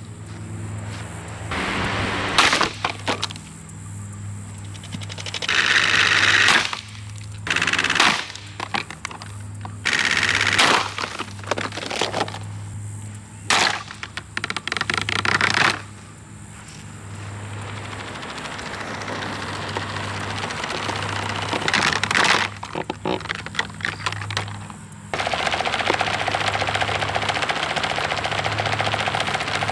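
Blue Mainstays box fan being destroyed: rapid runs of clattering and cracking strikes over a steady low hum. About halfway through, the strikes give way to a steadier noise that slowly grows louder.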